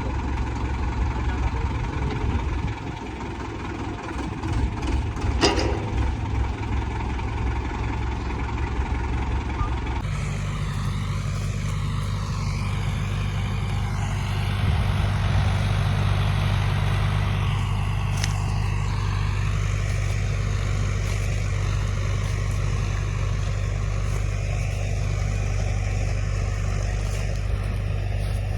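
Indo Farm 3075 4x4 tractor engine running steadily, with one sharp knock about five and a half seconds in.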